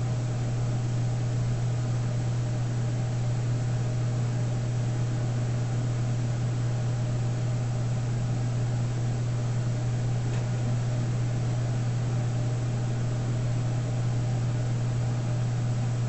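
A steady low hum with an even hiss over it, unchanging in level.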